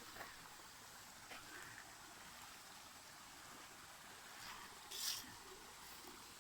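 Faint steady hiss of flowing water from a jungle stream or waterfall, with a thin steady high tone over it and a short rustle about five seconds in.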